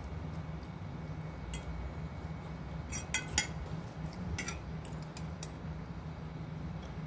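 Metal serving spoon clinking against a china plate and a glass salad bowl: a few light clinks, the loudest cluster about three seconds in, over a steady low hum.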